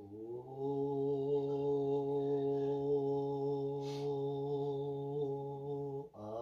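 A man's voice holding one long, steady low note, sustained for as long as his breath lasts in a lung-capacity contest. The note breaks briefly near the start and again just before the end, and there is a faint click about four seconds in.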